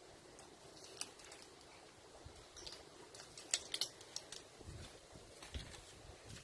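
Faint paper rustling and a few sharp clicks from bundles of banknotes being handled, with a quick cluster of clicks about halfway through and soft low thumps toward the end.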